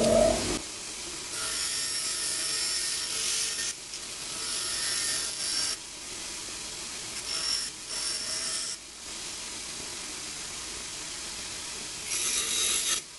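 Bench grinder running while a small metal spoon blank is pressed against its grinding wheel in several short passes. Each pass is a few seconds of hissing metal-on-stone grinding, with the grinder's steady running heard between them.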